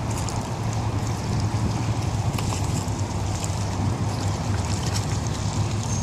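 Steady wind buffeting the microphone over the wash of river water, with faint light splashes from a golden retriever wading through the shallows.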